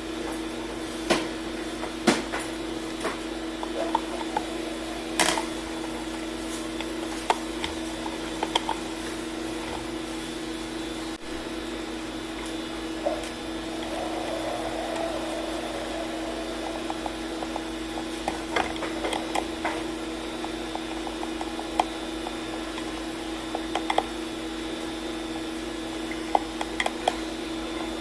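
Scattered light clicks and knocks of hands handling a blender's parts and power cord during repair, over a steady electrical hum.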